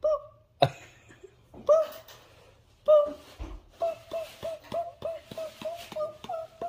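Small dog whining in short high yips: a few single ones at first, then a quick string of about three a second from about four seconds in. The yips come as its nose is booped.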